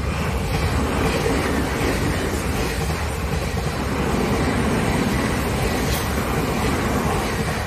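Odakyu electric commuter train passing through a level crossing at speed: a loud, steady rush of wheels on rail, easing off near the end as the last car clears.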